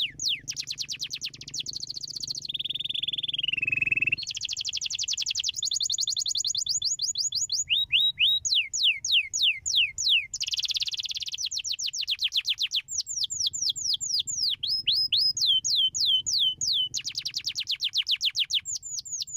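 Domestic canary singing a continuous song of fast trills: rolls of rapid, repeated downward-sweeping notes that change to a new phrase every second or two, with one held, gently falling whistle about two and a half seconds in.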